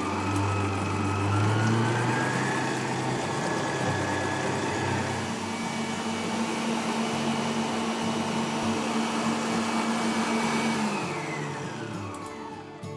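Stand mixer with a whisk attachment whipping cream cheese, cream and sugar into a stiff frosting. The motor whine rises in pitch over the first couple of seconds as the speed is turned up, runs steadily, then falls away near the end as the mixer winds down.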